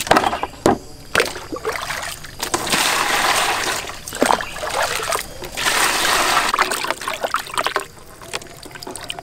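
Water scooped with a plastic dipper and poured into a basin twice, each pour lasting a second or two, with small knocks and splashes between. Near the end, hands slosh the water while washing fish in the basin.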